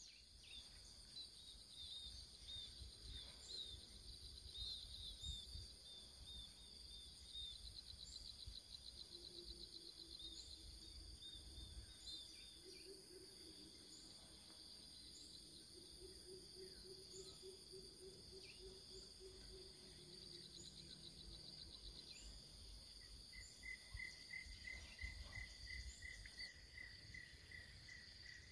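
Faint chorus of insects shrilling steadily at a high pitch, with trilled chirps over it. A low, rapidly pulsed call runs through the middle, and a quick run of chirps comes near the end.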